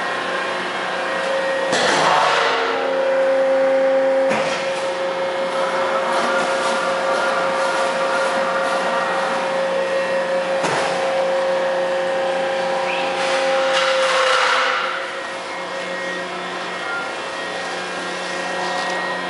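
Thermoforming machine for outdoor mats running: a steady motor hum with a held tone, broken by several short bursts of hiss.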